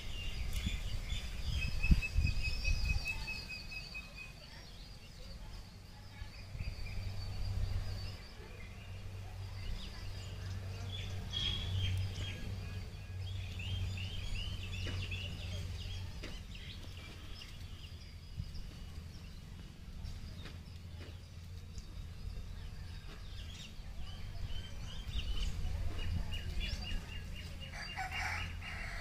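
Small birds chirping and calling, with short runs of quick high chirps repeated every so often, over a low steady hum.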